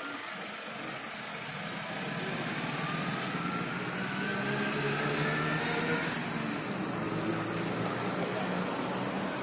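A motor vehicle engine running close by, its whine rising in pitch over the first several seconds as it speeds up, then holding steady.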